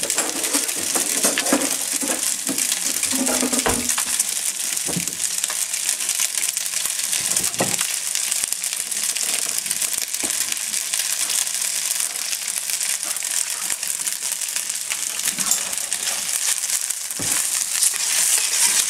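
Linguine and vegetables sizzling in butter in a stainless steel sauté pan, a steady high hiss, with a few scattered clicks.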